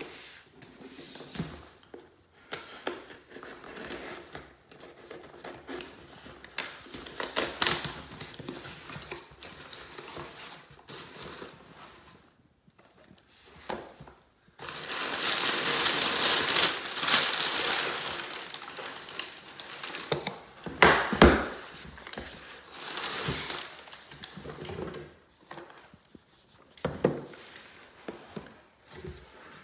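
Cardboard shipping box being opened and unpacked by hand: rustling and tearing of tape and flaps, a loud stretch of crumpled packing paper crinkling about halfway through, and light knocks as the product boxes are set down on the countertop.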